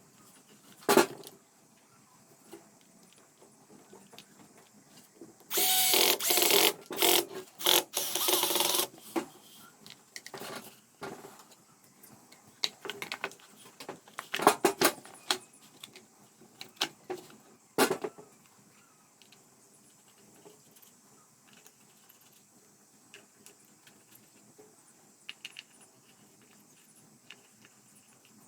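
Power drill run in several short trigger bursts from about five and a half to nine seconds in, followed by scattered clicks and knocks of metal parts and tools being handled.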